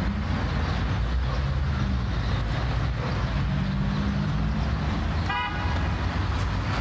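Steady low rumble of road traffic, with a short car horn toot about five seconds in.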